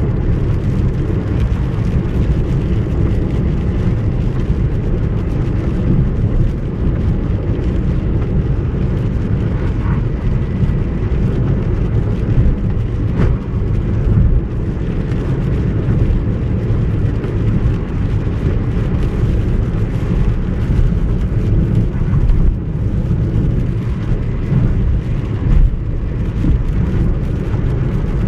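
Steady low rumble of a moving car heard from inside the cabin: engine and tyre noise on wet asphalt.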